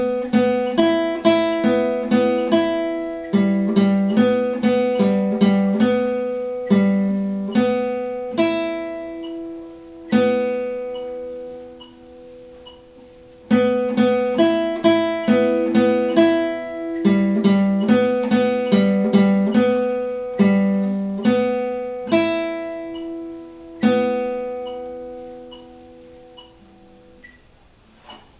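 Nylon-string classical guitar played fingerstyle: an exercise of single plucked notes over bass notes in two phrases, with a pause between them, and a last note that rings out and fades near the end.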